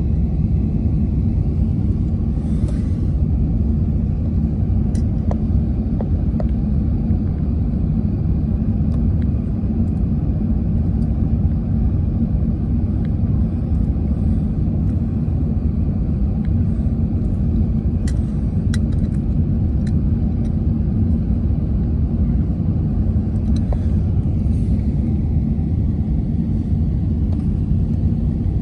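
Steady low rumble of cabin noise inside an Airbus A380 on final approach: engine and airflow noise through the fuselage, even and unchanging, with a few faint ticks.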